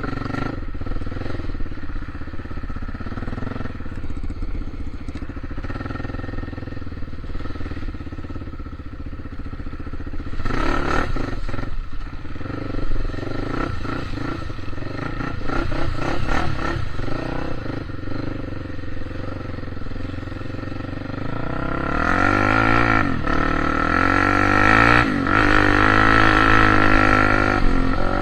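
A motor vehicle's engine running off-road, with its pitch rising and falling as it revs, and some clatter. It grows louder and revs harder in the last six seconds or so.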